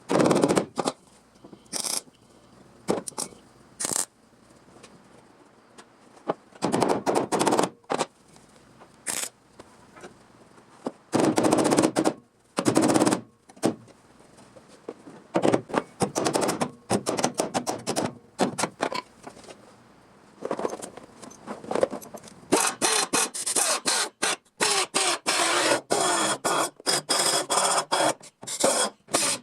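Sheet-steel fabrication work: irregular scraping and knocking strokes on metal, then from about 22 seconds in a fast, rattling run of rapid strikes that goes on to the end.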